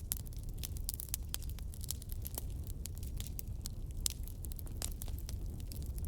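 Burning firewood crackling: dense, irregular pops and snaps over a steady low rumble, with a sharper pop right at the start and another about four seconds in.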